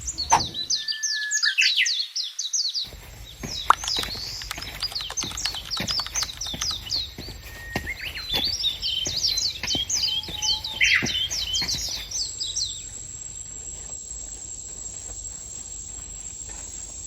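Wild birds calling: three quick bursts of high, sweeping chirps, fading out about twelve seconds in, after which a steady thin high-pitched tone remains.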